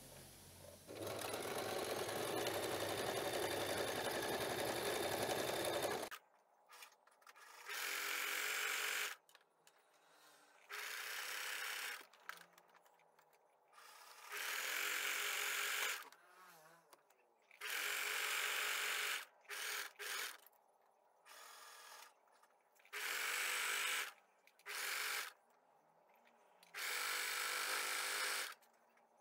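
Domestic sewing machine stitching a zigzag, starting and stopping: one run of about five seconds early on, then many short runs of a second or two with brief pauses between, as picot-edge elastic is sewn onto lace.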